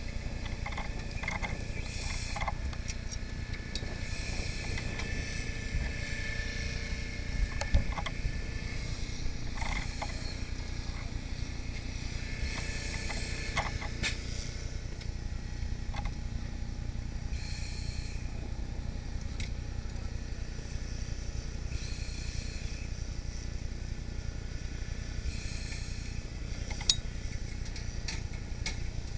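Steady low rumble of a fire truck's running engine, heard from up in its aerial ladder's platform bucket, with short hisses every few seconds. A sharp click comes about a quarter of the way in, and a louder one near the end.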